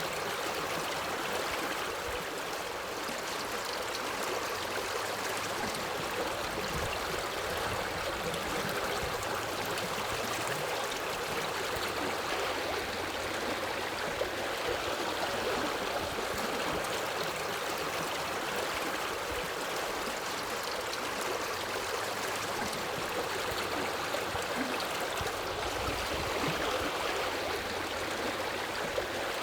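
A forest river flowing, a steady rushing and babbling of water that does not let up.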